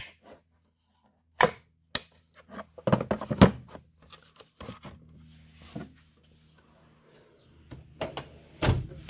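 A string of sharp clicks and knocks, with a quick cluster about three seconds in and a louder knock near the end: tool cases being opened and handled and tools set down in a toolbox drawer.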